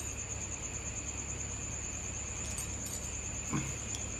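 An insect's steady, high-pitched pulsing trill over a low hum, with faint handling of pliers and wire about three and a half seconds in.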